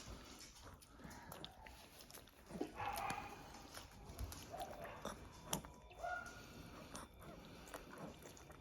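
Faint wet mouth sounds of a weak, paralysed dog taking syringe-fed mash: scattered small clicks of licking and chewing at the syringe tip, with a few brief squeaky sounds.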